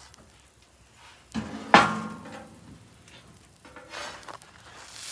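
A cast iron skillet set down on the steel griddle top with a single clank about a second and a half in, ringing briefly, with a few lighter knocks after. Faint sizzling from the buttered sandwiches on the hot griddle, growing near the end.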